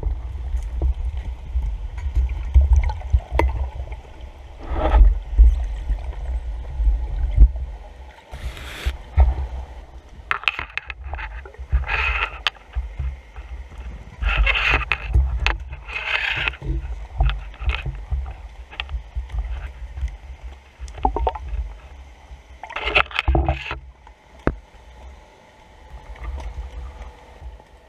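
Underwater sound picked up through a camera housing on a speargun: an uneven low rumble of water moving past the housing as the diver swims, with scattered clicks and knocks and several short hissing rushes.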